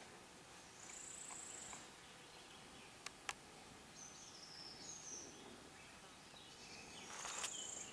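Faint woodland ambience with brief high-pitched chirps and trills from small wild creatures: a held high trill about a second in and again near the end, and a warbling chirp in the middle. Two soft clicks sound about three seconds in.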